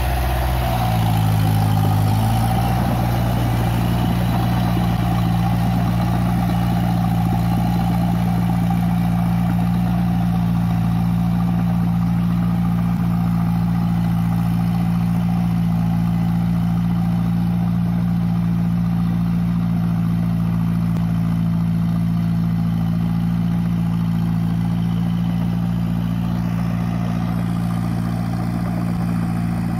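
Massey Ferguson 185 tractor's four-cylinder diesel engine running steadily. Its pitch changes briefly about a second in, then holds even.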